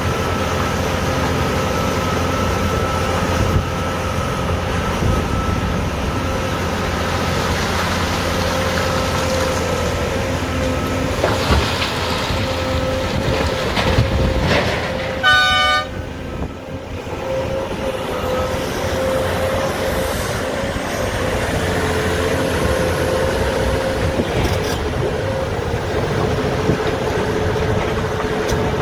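Cat 390F L hydraulic excavator working under load, its C18 diesel engine and hydraulics running with a steady whine as it digs and swings. Blasted limestone is dumped into a haul truck's body a little before halfway, and a single short horn blast sounds just after halfway.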